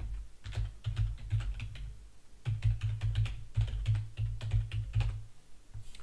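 Typing on a computer keyboard: a quick run of key clicks, a short pause about two seconds in, then a second run that stops a little after five seconds.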